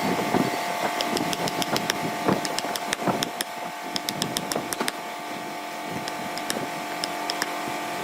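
A small electric power tool's motor running steadily with an even whine, with scattered light clicks and taps throughout.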